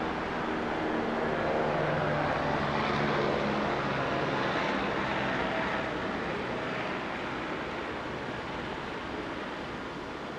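A heavy vehicle's engine hum and road noise swelling to a peak a few seconds in, then slowly fading.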